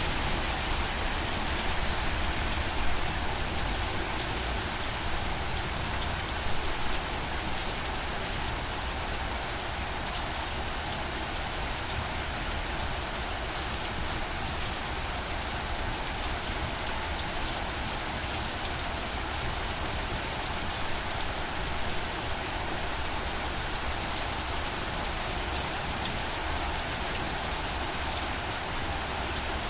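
Steady rain falling on a surface, an even wash of many drops.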